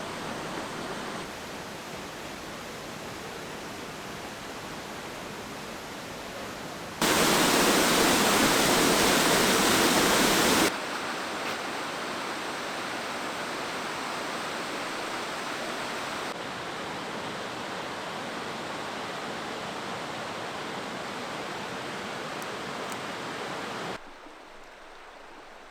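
Waterfall water rushing, a steady even noise that jumps in level at several sudden cuts: loudest for a few seconds from about seven seconds in, and much fainter near the end.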